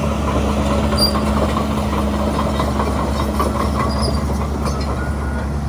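Shantui DH17C3 crawler bulldozer moving, its diesel engine running with a steady drone while the steel tracks clank and squeal. A rapid run of clanks comes through the first few seconds.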